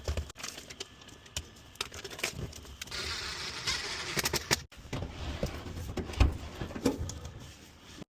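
Hands fitting a flexible metal dryer transition hose: scattered metallic clicks and rattles, a stretch of rustling about three seconds in, and a dull knock toward the end.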